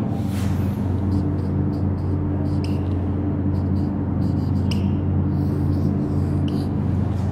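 A steady low hum, with a few faint, brief squeaks of a marker writing on a whiteboard.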